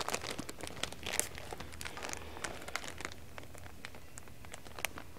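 Plastic packaging crinkling and rustling, with scattered light clicks and taps, as the new carburetor's parts are unpacked.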